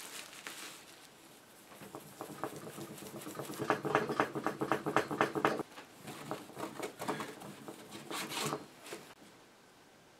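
Cloth scrubbing a hard black radio front panel that has been dusted with powdered cleanser, in quick back-and-forth strokes. The strokes come thickest a few seconds in, with another short bout near the end.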